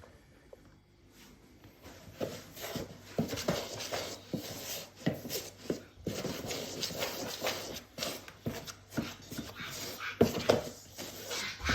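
A spoon stirring and scraping a crumbly cornflour and shaving-foam mixture in a bowl, with irregular scrapes and knocks starting about two seconds in.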